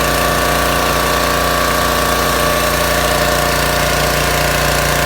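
Duromax 3100 psi pressure washer's 7 hp single-cylinder gas engine running steadily at constant speed.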